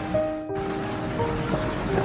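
Soft ambient music of slow, held notes laid over steady rain noise; the rain briefly drops away about a quarter of the way in.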